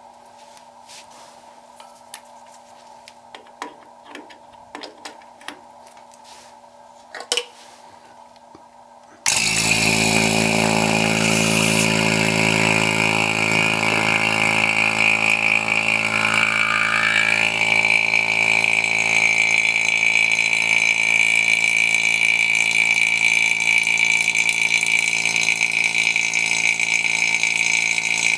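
A few light knocks and clicks of handling, then about nine seconds in an electric oil-sealed vacuum pump switches on suddenly and runs steadily, a high whine over a low hum, evacuating a homemade vacuum chamber to degas silicone rubber.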